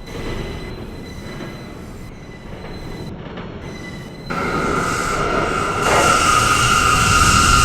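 R179 subway train running with a steady rumble. About four seconds in, a loud, steady, high-pitched wheel squeal starts and continues.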